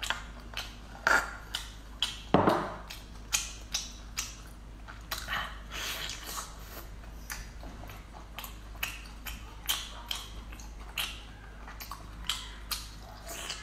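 Close-miked eating and food-handling sounds: a string of short wet clicks and smacks as sauced seafood is chewed and a cooked shellfish piece is pulled apart by hand. The loudest comes about two and a half seconds in.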